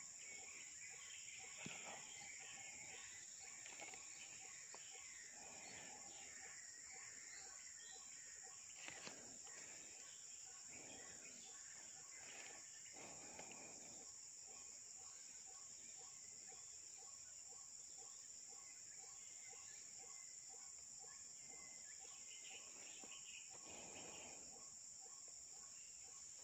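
Near silence, with a faint, steady high-pitched insect drone.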